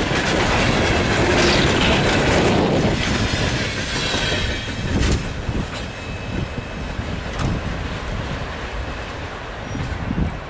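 Freight train coal cars rolling past, wheels clacking over the rail joints with some high wheel squeal. It is loud at first and drops off about three seconds in as the last cars pass, fading as the train moves away.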